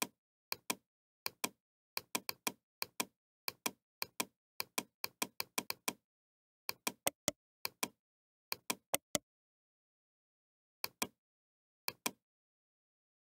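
Computer mouse button clicks, mostly in close pairs of press and release, coming in quick runs with a pause of about a second and a half in the second half.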